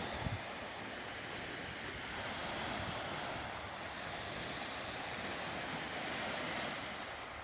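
Sea surf washing steadily onto the shore, swelling and easing slowly, with wind rumbling on the microphone.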